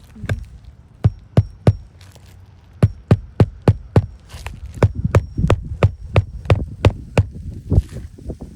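Hammer driving nails into roof shingles during a shingle repair: sharp blows in short groups of three to five, then a steadier run of about three blows a second.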